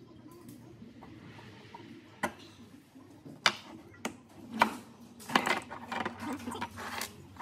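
Fuel injectors and a red metal part being handled on a workbench: a string of sharp clicks and knocks as the parts are moved, picked up and set down, mostly from about two seconds in.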